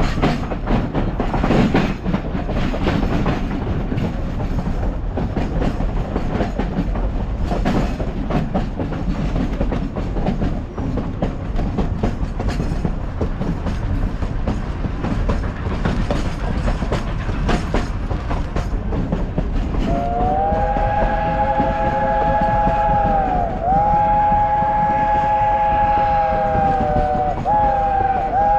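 Durango & Silverton narrow-gauge steam train running: rumble and rattle of the coaches, with clicking over the rail joints. About twenty seconds in, the locomotive's chime steam whistle sounds a chord of several tones, held long, its pitch sagging briefly twice.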